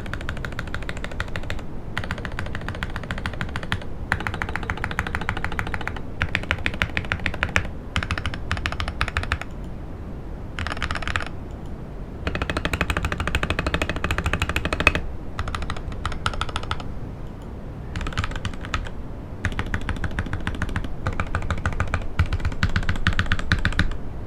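Stock Akko ACR67 mechanical keyboard being typed on fast: a gasket-mounted acrylic case with an FR4 plate. The keystrokes come in dense runs of a second or two with short pauses between them.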